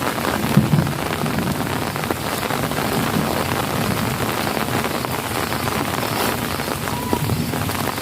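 Steady rain falling, with many drops pattering on surfaces, and a few short low thuds about half a second in and again near the end.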